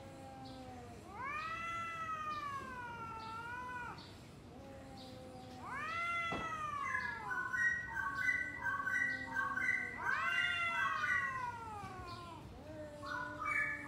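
Two domestic cats caterwauling at each other in a standoff before a fight: a series of long, drawn-out yowls that rise and then waver or fall in pitch, answered back and forth. From about halfway, a rapid, repeated high chirping joins in behind them.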